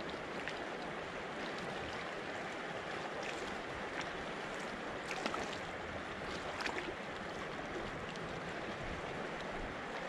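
River water rushing over shallow rocky rapids: a steady wash with small splashes and gurgles now and then.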